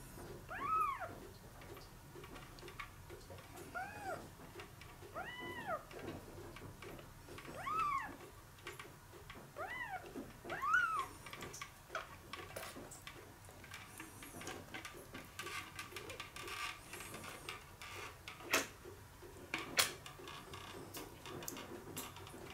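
A newborn kitten mews about six times in the first half, short high cries that rise and fall. Later come small water splashes and clicks, with two sharp clicks near the end.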